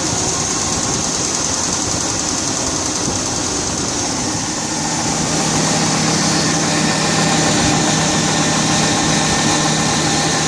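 1999 GMC Yukon engine running with a knock, which the owner fears means the engine is shot. It gets a little louder about halfway through.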